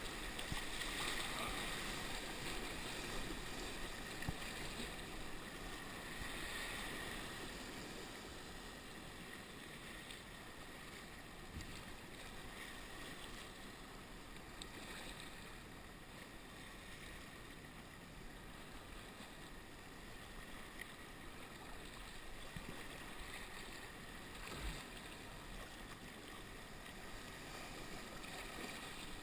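Choppy sea water splashing and washing around a sea kayak as it is paddled, with surf breaking on nearby rocks. Louder for the first several seconds, then steadier.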